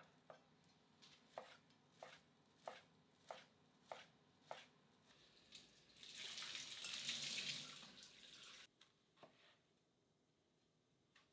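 Kitchen knife cutting through food onto a cutting board in slow, even strokes, about one every half-second. Then a kitchen tap runs into the sink for about three seconds and cuts off suddenly, followed by a faint knife tap or two.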